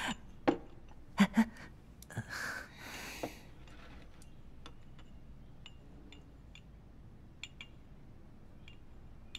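Light clinks and taps of chopsticks and spoons on porcelain bowls at a meal, scattered faint ticks over a quiet room. In the first few seconds there are a couple of short vocal sounds and a breathy rustle.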